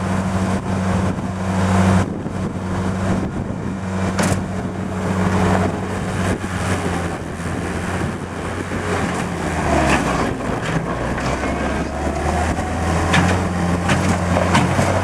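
Kubota diesel engine of a Thomas 153 skid steer loader running while the machine is operated. Its note drops about two-thirds of the way through and rises again soon after, and a few sharp knocks sound over it.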